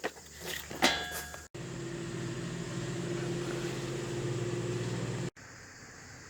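A few light knocks, then a steady machine hum with a hiss that starts and stops abruptly after about four seconds.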